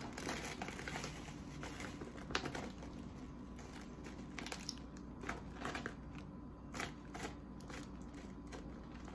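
Plastic bag of dark brown cane sugar crinkling and crackling irregularly as it is gripped and worked at the top by hand.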